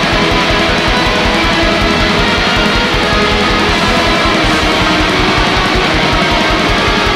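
Atmospheric black metal recording: a dense, steady wall of distorted electric guitars over rapid, evenly driven low drum beats.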